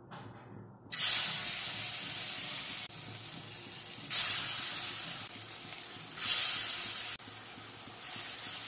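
Raw banana kofta balls frying in hot oil in a kadai, sizzling loudly. The sizzle starts about a second in and flares up twice more, around four and six seconds, as more koftas go into the oil, easing off a little after each.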